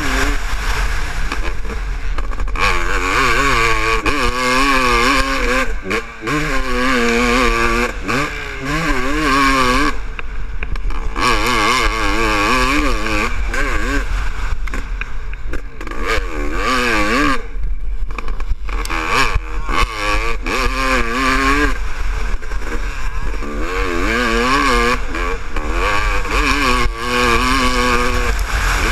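1998 Honda CR500's 500cc two-stroke single-cylinder engine revving hard and dropping off again and again as the bike is ridden round a motocross track, with a steady low rumble of wind on the helmet camera. It is running a richer test jetting (185 main jet, needle clip one from the bottom), which the rider found less clean than his later setting.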